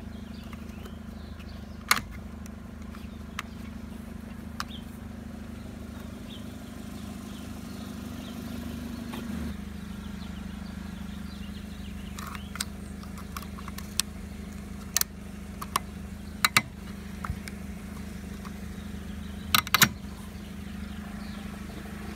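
Car engine running steadily, a constant low drone, with a few sharp clicks and knocks over it, several close together near the end.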